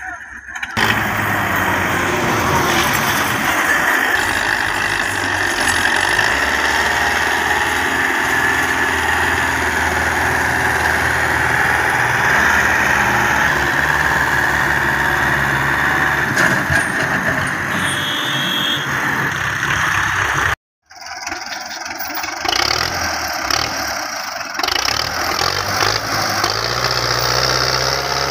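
Belarus 510 tractor's diesel engine running steadily under load, hauling a heavily loaded trolley. The sound drops out briefly about two-thirds of the way through, then the engine is heard working again.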